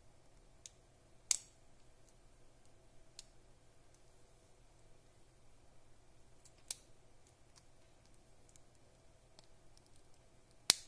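Hard plastic parts of a small Kinder Surprise toy clicking and snapping as they are fitted together and handled in the fingers. A few sharp clicks stand out: a loud one about a second in, softer ones in the middle, and the loudest just before the end.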